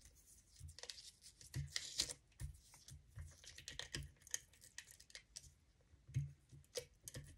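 Handheld adhesive tape runner (Stampin' Up! SNAIL) being run along small paper die-cut pieces: faint scattered clicks and short crackling rustles of the dispenser and the paper.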